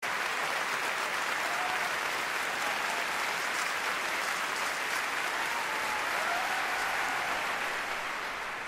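Large audience applauding steadily, with a few faint voices calling out over the clapping; the applause eases off near the end.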